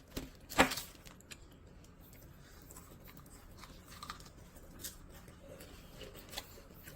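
A crisp bite into a Lay's potato chip about half a second in, followed by faint, scattered crunches of chewing.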